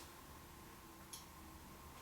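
Near silence: faint room tone with a single soft click about a second in.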